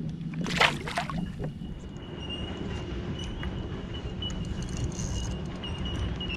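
Wind and water noise around a fishing kayak, with a short burst of noise about half a second in and a faint steady high tone from about two seconds in.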